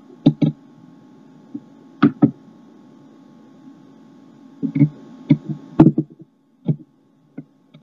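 Sharp knocks and clicks from handling things at a desk: a quick pair near the start, another about two seconds in, a cluster of several around five to six seconds in, then two single ones. A faint steady hum underneath cuts out about six seconds in.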